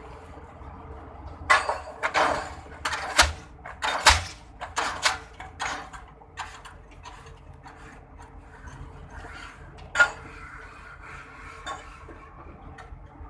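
A quick, irregular run of sharp metallic clanks and clinks, metal striking metal, with one more clank about ten seconds in.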